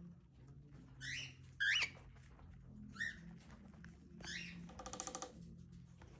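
Cockatiel chirping: four short chirps, the loudest about a second and a half in, then a brief buzzy, rapidly pulsed chatter about five seconds in.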